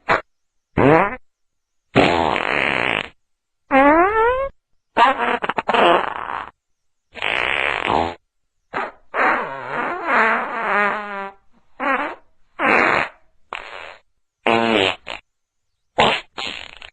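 A series of about a dozen separate fart sound effects, each lasting from a fraction of a second to about a second and cut off into silence between them; some are flat buzzy blasts, others rise or fall in pitch or flutter in a wet rippling trill.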